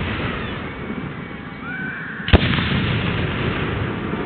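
Fireworks display: aerial shells rumbling and crackling, with a short rising whistle and then a single sharp, loud bang a little over two seconds in.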